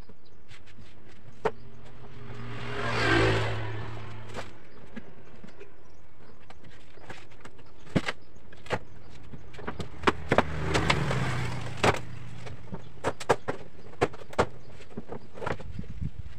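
Handling noise from a sheet of fiberglass cloth being laid and adjusted over a plywood boat panel, with scattered taps and knocks on the wooden floor. Twice a motor vehicle's engine hum swells and fades as it passes: about three seconds in, and again around ten to twelve seconds.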